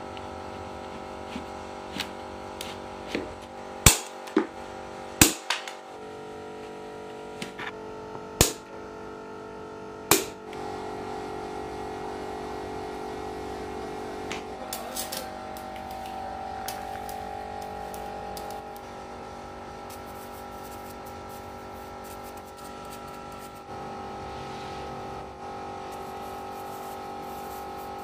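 Sharp knocks and clicks of lead-acid battery plate packs being set and tapped into the cells of a plastic battery case, about eight of them in the first ten seconds, then only a steady background of held tones.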